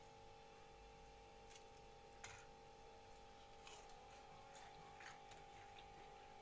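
Near silence: room tone with a faint steady hum and a few faint, scattered clicks.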